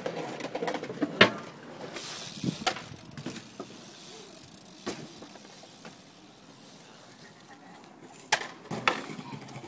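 BMX bike ridden over stone paving and steps, with several sharp clattering knocks from the bike striking the ground: the loudest about a second in, and a cluster near the end.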